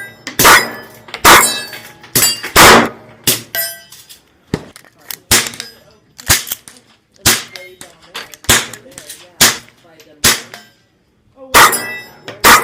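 Airsoft Glock 19 pistol firing a string of single shots, about one a second with a short pause near the end, each sharp crack followed by a brief metallic ring.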